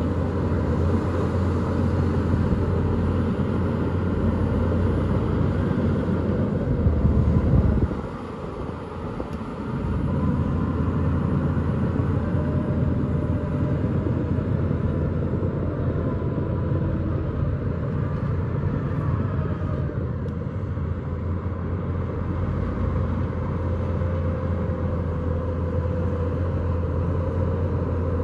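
Bulldozer's diesel engine running, a steady low rumble; it drops off suddenly about eight seconds in and picks back up about two seconds later.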